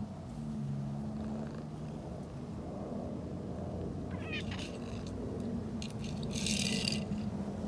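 Domestic cat giving one short rising meow about four seconds in, over a low steady hum, with a brief rush of scratchy noise near the end.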